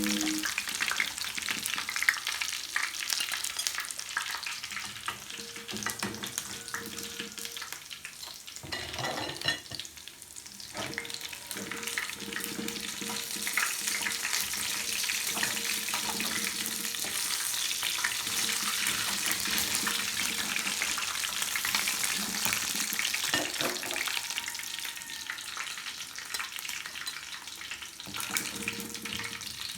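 Food frying and sizzling in a pan with a steady crackle, while it is stirred, with small clicks and scrapes of the utensil against the pan. The sizzle eases briefly about a third of the way in, then picks up again.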